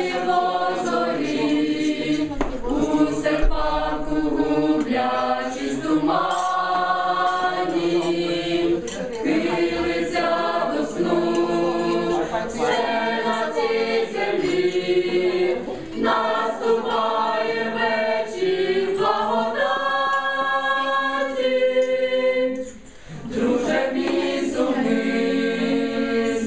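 A youth choir singing a song a cappella, with no instruments, with one short break between phrases near the end.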